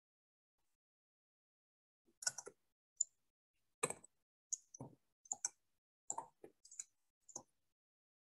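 A string of about a dozen short, irregularly spaced clicks and knocks, heard over a video call, with dead silence between them.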